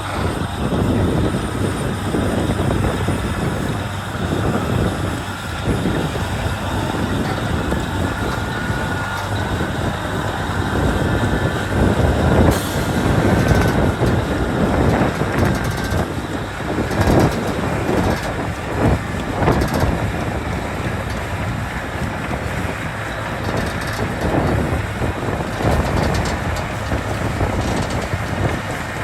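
Caterpillar 621B wheel tractor-scraper's diesel engine running, a steady heavy rumble with louder swells now and then, and wind noise on the microphone.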